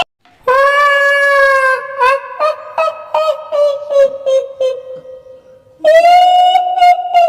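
High-pitched woman's ghostly wail in the style of the kuntilanak, held for about a second and a half and then breaking into a string of short cackling pulses, with another drawn-out wail starting near the end.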